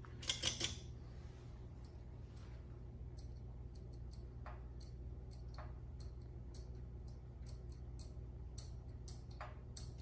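Bally Midway Fireball Classic pinball machine powered on, with a steady electrical hum. A quick cluster of sharp clicks comes about half a second in, and scattered faint clicks follow.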